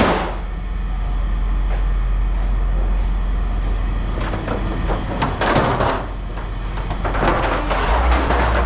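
A vehicle engine running with a steady low hum, with several bursts of clattering noise over it, the loudest about five to six seconds in and again a little before the end.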